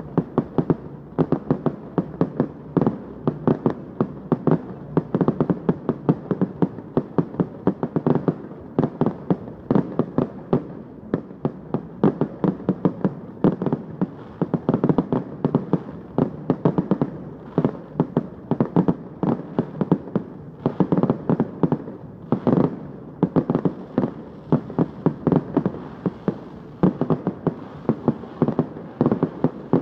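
Fireworks display: a dense, unbroken barrage of aerial shell bursts and cracks, several bangs a second, with one especially loud burst about two-thirds of the way through.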